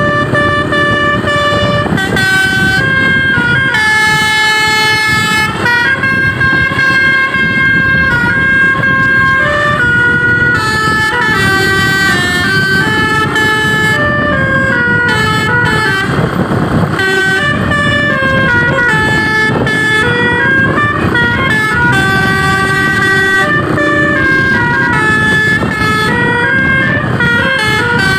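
Telolet multi-tone bus air horns with a DAV Basuri module, playing a melody: several horn notes sounding together, stepping up and down in pitch every half second or so, over a steady low rumble.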